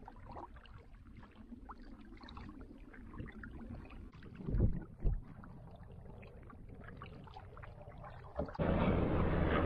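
Canoe being paddled: faint water sounds and light knocks, with two low thumps about halfway through. Near the end a much louder steady rushing noise with a low hum cuts in suddenly.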